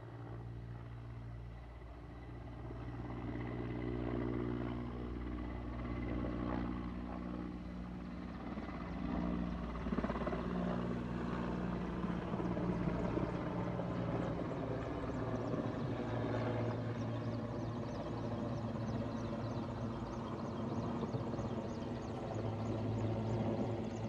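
Firefighting helicopter with a water bucket slung beneath it, its engine and rotor running steadily as it flies overhead, growing louder over the first few seconds.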